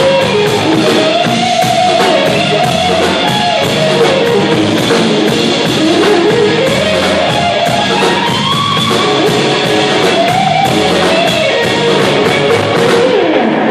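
Live rock band of electric guitar, electric bass and drum kit playing, with a steady cymbal beat under the guitar lines; the music ends near the end.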